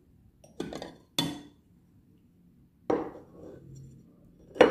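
Dishes being handled on a table: four separate clinks and knocks of crockery, the loudest near the end.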